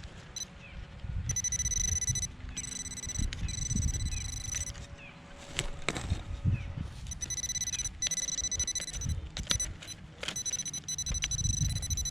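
Metal-detecting pinpointer sounding a steady high tone in stretches of one to three seconds, stopping and starting as it is moved over a nail in the hole. Low rumbling and a few knocks from handling the probe and the dirt.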